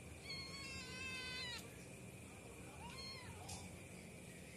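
A cat meowing: one long, slightly wavering meow of over a second, then a short second meow about three seconds in.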